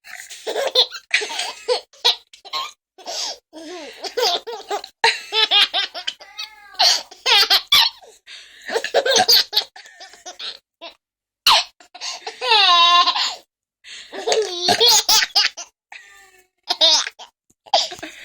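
Baby laughing hard in repeated bouts, with a longer high-pitched laugh about two-thirds of the way through.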